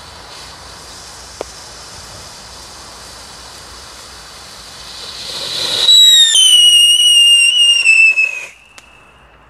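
Weco Phantomsirene firework: a faint hiss from the burning fuse, then the fountain sprays up with a swelling hiss about four and a half seconds in. About six seconds in a loud shrill whistle starts, sliding slowly down in pitch for about two and a half seconds before cutting off suddenly.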